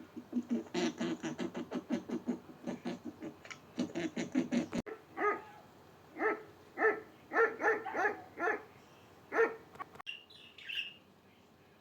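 Animal calls in three quick clips: a fast run of low, evenly repeated calls about five a second, then around eight short pitched calls spaced about half a second apart, then a few faint high chirps near the end.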